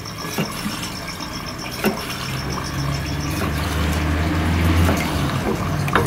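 Kitchen knife slicing a squid tube into rings on a wooden cutting board, the blade tapping the board a few times. Underneath, a steady background noise with a rapid high-pitched pulsing in the first half and a low rumble that swells in the middle and fades.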